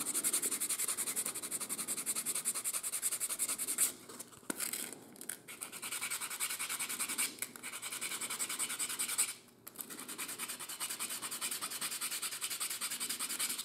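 Sandpaper rubbed back and forth in quick strokes over the sawn end of a small wooden dowel pin, sanding it flush: a fast, even scratching in three spells, with brief pauses about four and nine and a half seconds in.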